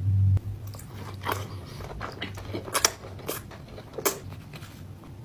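Close-miked eating: biting and chewing, with a few sharp crunches spread through. A short low rumble opens it.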